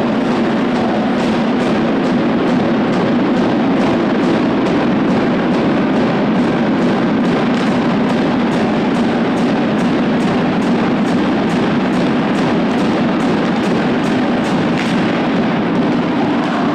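Ice hockey crowd chanting over a steady drum beat, about two beats a second.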